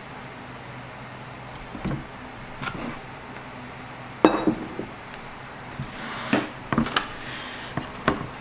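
Handling sounds on a wooden cutting board and tabletop: a scattering of light knocks and taps as a leek and a kitchen knife are set down and moved. The sharpest knock comes about four seconds in, and a quick cluster of taps follows near the end.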